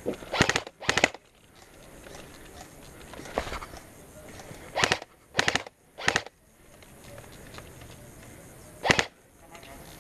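Airsoft guns firing about seven short bursts of rapid shots, with pauses between them; the loudest burst comes near the end.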